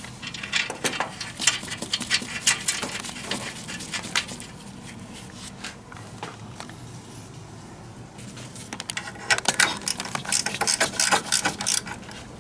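Light metallic clicks and taps of a wrench, nuts and washers being worked onto suspension bolts, coming in two busy spells with a quieter stretch between.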